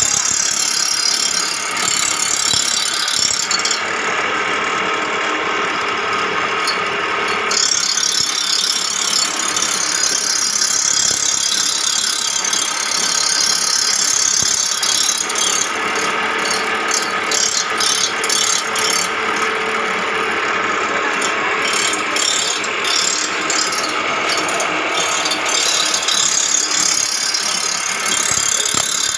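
Reel grinder sharpening a greensmower's cutting reel: the reel spins against the grinding wheel, making a loud, steady grinding of metal on stone whose tone shifts a few times.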